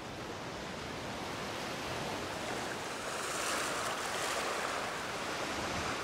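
Sea water washing in over the shore around a spawning land crab, a steady rush that swells into a louder surge about three seconds in.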